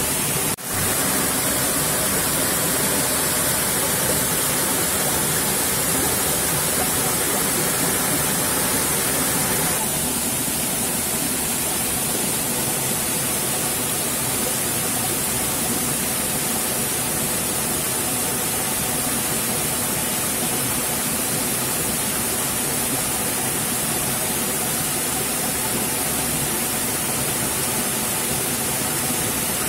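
Steady rushing and splashing of a small, light waterfall falling onto boulders and into a shallow pool. A single short click sounds just after the start.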